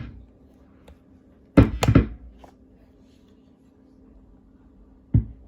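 A few sharp thunks while guitar gear is handled between playing, three in quick succession about one and a half seconds in and one more near the end, over a steady low hum.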